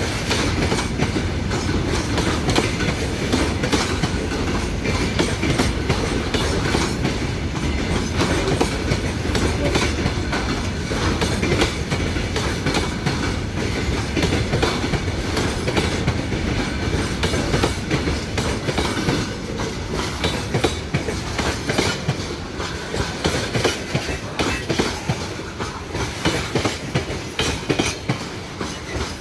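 Train rolling past at speed, its wheels clicking steadily over the rail joints; the clicks stand out more sharply near the end.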